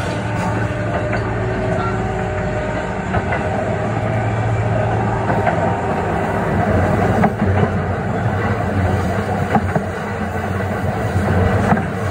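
Kintetsu 1420-series motor car Mo 1421 heard from aboard as it runs along the line. Its early Mitsubishi GTO-thyristor VVVF inverter and traction motors give a steady electric whine over the running noise. The wheels click over rail joints.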